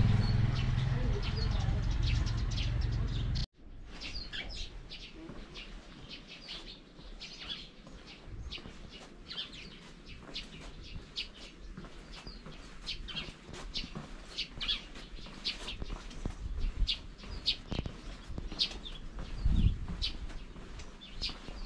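Small birds chirping, many short high calls scattered throughout. A louder low rumble runs under the first three and a half seconds and cuts off suddenly.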